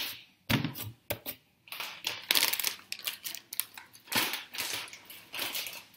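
Hands handling glitter slime and its containers: an irregular run of short crinkling, squishing bursts.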